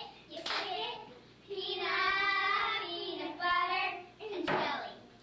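A group of young children singing a song together, with a hand clap about half a second in and another near the end.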